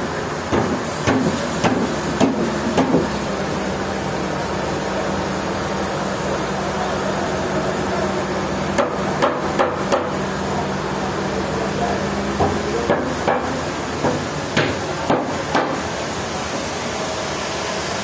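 Sharp knocks in three irregular runs of several blows each, near the start, around nine seconds in and again from about twelve to sixteen seconds, over a steady background hum.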